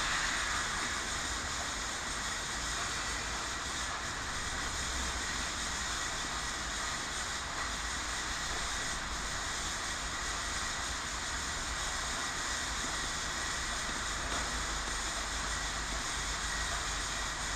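Steady background hiss over a low rumble, with no distinct events standing out.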